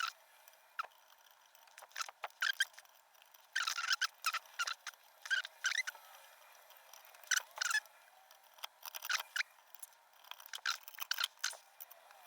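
Irregular metal clicks and short scrapes of an improvised pick working the wafers inside an Ilco cabinet lock, in bunches of quick clicks with pauses between.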